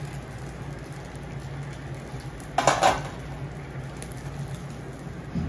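A metal spatula scrapes once across the steel griddle as it cuts through the okonomiyaki, about two and a half seconds in, over a faint frying sizzle and a steady low hum.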